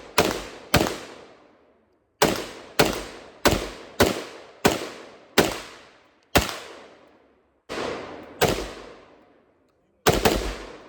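Gunfire: about a dozen single shots in a string, roughly one every half second or so, with two short pauses. Each crack has a ringing tail.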